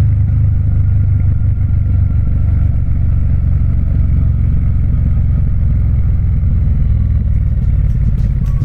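Triumph Speed Twin's parallel-twin engine running with a steady, even low rumble, not revving.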